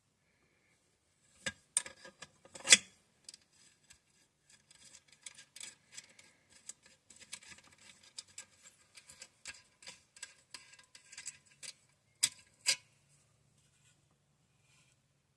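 Metal tools and small engine parts clicking and tapping as a governor linkage is worked loose on a small single-cylinder engine: a few sharp clicks, then a long run of light irregular ticks and scrapes, then two more sharp clicks near the end.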